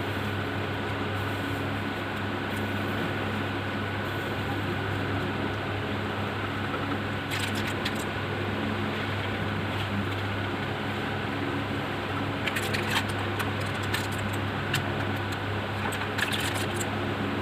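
A steady low hum with a faint high whine above it, and a few small clicks scattered through it, about seven seconds in, around thirteen seconds, and near the end.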